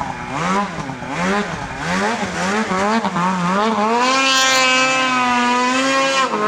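Mountain snowmobile engine revving up and down in quick repeated bursts of throttle as the sled works across a slope in deep powder. From about four seconds in it is held at high revs on a steady climb, then it drops off right at the end.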